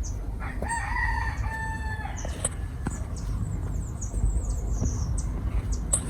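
One long, drawn-out animal call lasting about a second and a half, followed by a run of short high chirps, over a steady low rumble.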